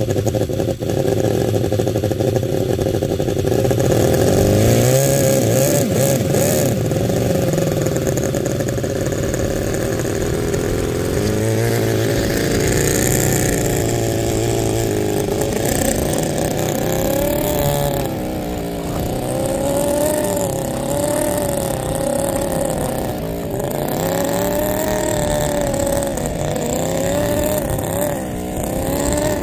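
Toyan FS-L400BGC miniature water-cooled inline four-cylinder gasoline engine running in an RC 6x6 truck, its pitch rising and falling again and again as the throttle opens and closes.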